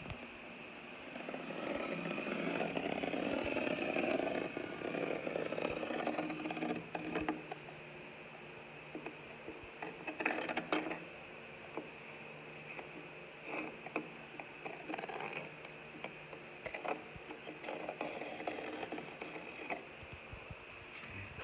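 Scribing dividers dragged along a textured wall, the metal point scraping over the bumpy texture while the pencil point marks the mantle's wooden side. The scraping is continuous for the first several seconds, then comes in short strokes with small clicks and taps.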